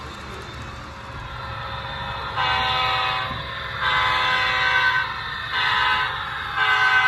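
HO scale model diesel locomotive's sound-decoder horn sounding four chord-like blasts, the last held longest, over the model's low engine rumble, which swells just before the horn starts.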